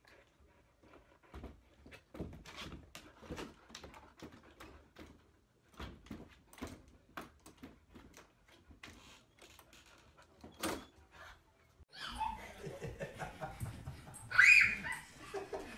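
A dog pawing at a doorknob and door: a long run of irregular knocks, clicks and rattles. After a cut, a livelier room with one short, loud, high-pitched sound near the end.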